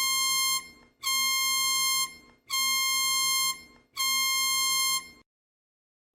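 Electronic emergency alert alarm sounding four long buzzy beeps, each about a second long, separated by short gaps at an even pace.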